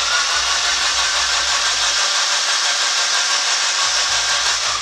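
Starter motor cranking a Nissan 240SX's KA24 four-cylinder engine with its spark plugs out, to clear starting fluid from the cylinders. It runs steadily and cuts off near the end.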